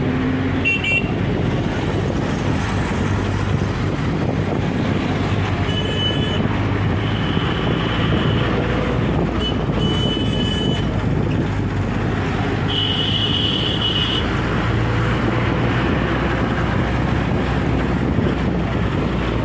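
Busy road traffic with a steady engine drone and wind buffeting the microphone. Vehicle horns honk several times, high and short, with the longest and loudest honk about two-thirds of the way through.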